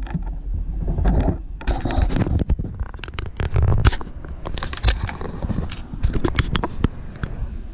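Handling noise from a hand-held camera being picked up and moved: many quick knocks, scrapes and rubs on the microphone over a low rumble.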